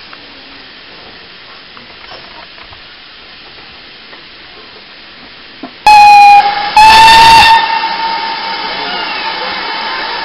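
Steam locomotive whistle giving two very loud single-note blasts about six seconds in, the second held longer and fading away, followed by steady steam hiss. Before it, only a low background.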